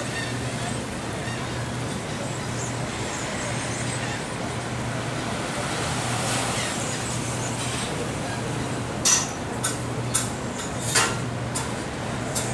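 Steady outdoor background noise with a low steady hum beneath it. A few sharp clicks or knocks come about nine to eleven seconds in.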